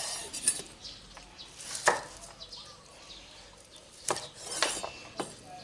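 About five sharp, separate clicks and taps of dishes and cutlery being handled at a meal.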